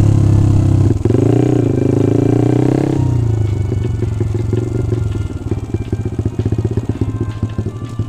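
Single-cylinder four-stroke engine of a Yamaha Jupiter MX bored up to 177cc, ridden under throttle. The note shifts and rises about a second in, then the throttle closes about three seconds in and the engine drops to a slow, pulsing idle as the bike rolls in.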